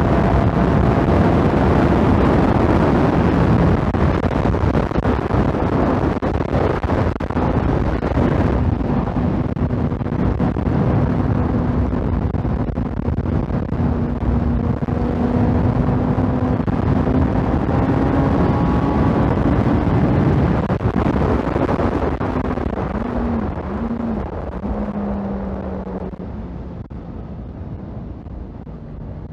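Motorcycle at sustained high speed, with heavy wind rush over the microphone and the engine's note climbing slowly as it pulls. Near the end the throttle eases off, the engine note falls and the overall sound fades as the bike slows.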